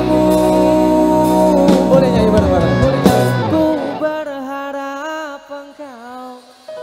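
A live band plays while a male vocalist sings a Javanese pop song. About three and a half seconds in, the bass and drums drop out, leaving the voice singing a gliding, ornamented line over light accompaniment.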